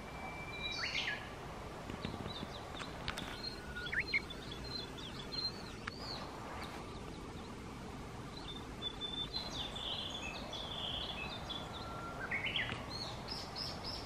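Several small songbirds singing together in trees: clear whistled phrases, each opening on a held note and breaking into quick, higher notes, with chirps scattered between, over a steady background hiss.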